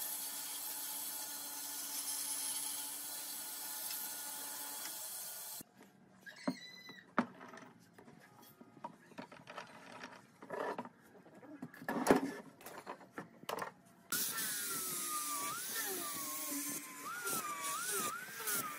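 A bandsaw running through a pine board with a steady hum, cut off abruptly about five seconds in. Then scattered clicks and knocks of bar clamps being set on the boards, with one sharp knock, and from about two-thirds of the way through an angle grinder with a sanding pad sanding the pine, its whine wavering up and down in pitch as it is pressed on the wood.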